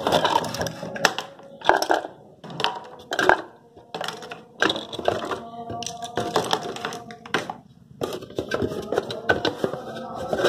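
Cardboard packaging and the plastic parts of a manual vegetable chopper being handled and taken out of the box: irregular rustling, scraping and short clattering knocks, with brief pauses.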